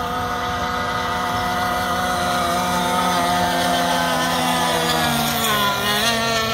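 Gas-powered 1/6-scale RC race boats' small two-stroke engines running at full throttle, several at once, with a high-pitched whine. About five seconds in the pitch drops as boats sweep past close by.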